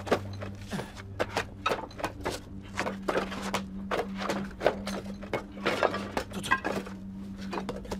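Scuffle sound effects from a film struggle: a dense, irregular run of sharp clicks, cracks and knocks, over a steady low drone.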